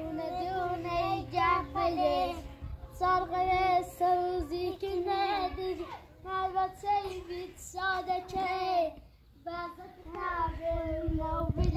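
A child singing a song in phrases of a few seconds each, with short breaks between them.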